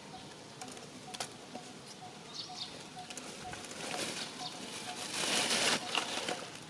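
Rustling, loudest about five seconds in, over a faint short tone that repeats about three times a second, with a brief high chirp about two and a half seconds in.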